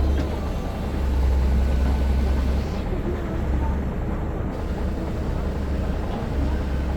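KOBELCO hydraulic excavator's diesel engine running as it works, a steady low drone that swells slightly at times.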